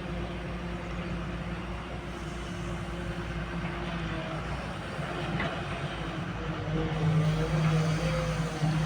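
A CAT excavator's diesel engine running steadily while the machine works, growing louder near the end as the engine comes under more load.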